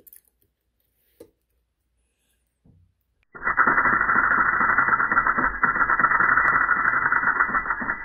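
Multipick KRONOS electric lock pick oscillating its pick against the pin stack of a clear acrylic padlock, heard slowed down as a low, dense buzz. It starts about three seconds in, after a few faint clicks.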